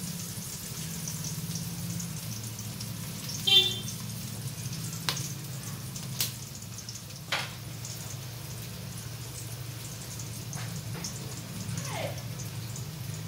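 Chopped onions frying gently in oil in an aluminium pot: a faint sizzle with a few sharp pops over a steady low hum. A short, loud ringing sound about three and a half seconds in is the loudest moment.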